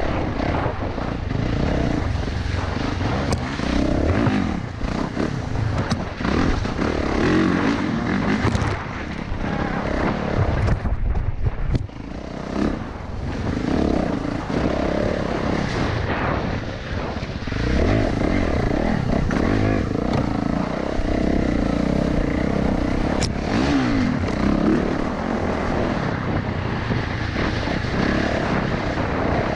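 Dirt bike engine running under varying throttle while ridden along a trail, its pitch rising and falling, easing off briefly about twelve seconds in.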